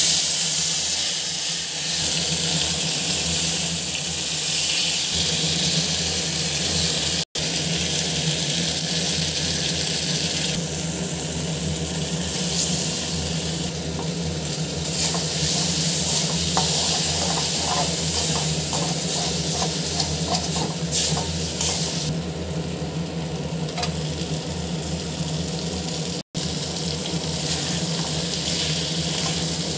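Fish head pieces and rice frying in hot oil in a wok, sizzling steadily, while a metal spatula stirs and scrapes against the pan.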